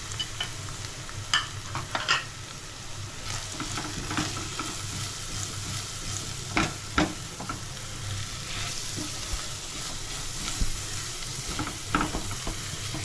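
A tomato and spice masala sizzling in a frying pan while a spoon stirs it. The spoon scrapes and knocks against the pan now and then.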